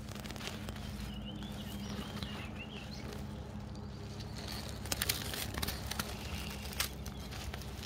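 Dry grass and leaves crunching close by in a few sharp crackles about five to seven seconds in, with a bird chirping faintly in the first few seconds over a steady low hum.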